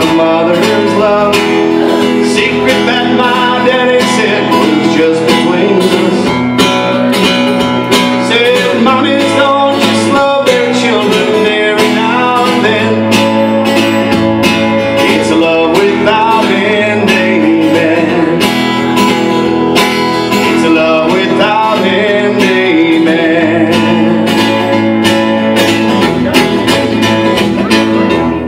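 Country music with a strummed acoustic guitar, playing steadily at full level.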